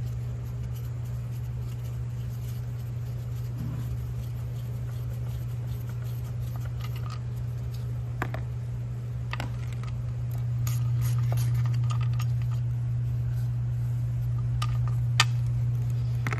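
Occasional light metal clicks and clinks as bolts are undone with an Allen key on the Mini Miller cable machine's drum, over a steady low hum.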